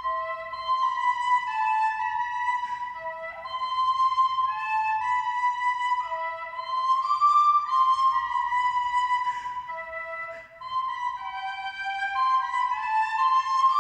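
Music: a slow flute melody of long held notes, with two lines often sounding together.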